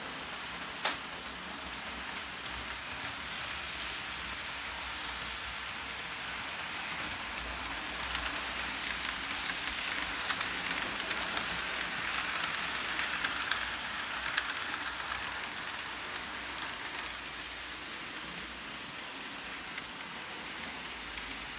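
Model trains running on the layout track: a steady whirring hiss of small motors and wheels rolling on rails, with light clicks as wheels cross rail joints. One sharp click about a second in, and the running grows louder with more ticks in the middle.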